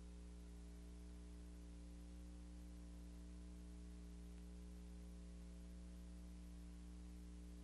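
Near silence: a steady low hum with a faint hiss behind it.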